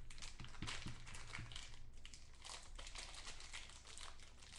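Foil wrapper of a football trading-card pack crinkling and crackling in the hands as it is worked open.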